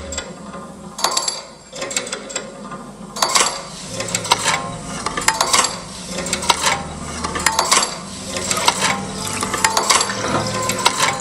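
Irregular clinking and clattering of small hard objects, like utensils or tools knocking together, with a short ring after some of the strikes.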